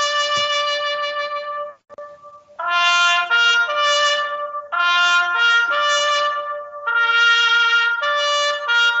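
A solo trumpet plays a slow ceremonial call of single held notes, with a short break about two seconds in. It is the call for a standing moment of silence.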